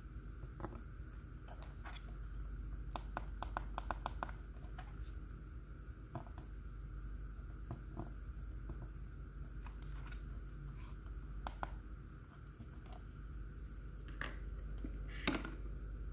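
Light plastic clicks and taps from hands handling a plastic LCD writing board and working the slide lock switch on its back, with a quick run of clicks a few seconds in and a louder knock near the end.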